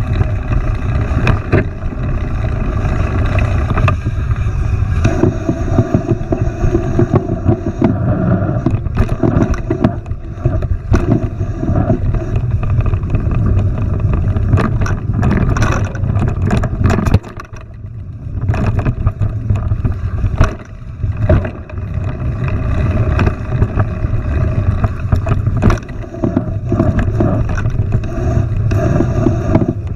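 Heavy wind rumble on a moving camera's microphone with frequent knocks and rattles, as from a mountain bike ridden over a rough trail; it briefly drops off a little past halfway.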